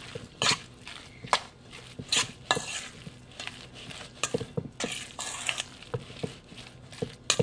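A moist tourtière filling of mashed potato, minced seitan and mushrooms being mixed by hand in a stainless steel bowl: irregular short strokes of wet mashing and scraping against the metal, several a second.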